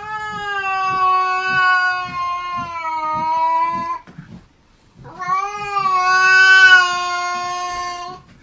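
A cat yowling: two long calls of about four seconds each at a steady pitch, with a short pause between. The second call is slightly louder.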